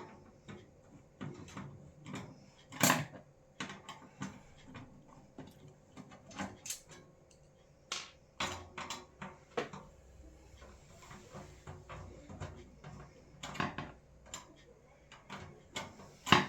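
Scattered clicks and knocks of a screwdriver, screws and case fans against a PC case as the fans are unscrewed and taken out, with two louder knocks, about three seconds in and at the very end.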